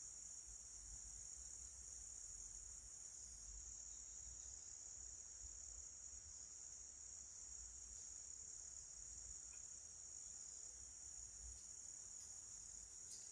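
Crickets chirring steadily as a faint, continuous high-pitched sound.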